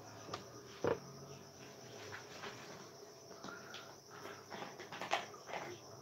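A steady high insect chirring, with scattered short clicks and two sharper knocks, about a second in and near the end.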